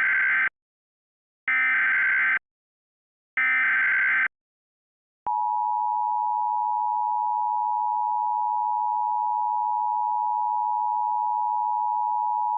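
Emergency Alert System header: three short, identical bursts of SAME digital data tones, the first already under way. About five seconds in comes the EAS two-tone attention signal (853 and 960 Hz), held steady at one pitch.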